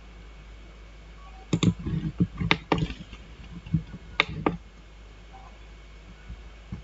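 Computer mouse clicks and keyboard key taps: a quick run of clicks about a second and a half in, then a few single clicks around four seconds, with quiet room tone between.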